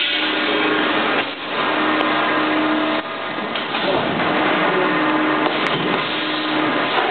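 Steady running noise of a packing line's conveyor belts and label printer-applicator, with a humming tone that comes and goes and brief dips in loudness about a second in and again about three seconds in.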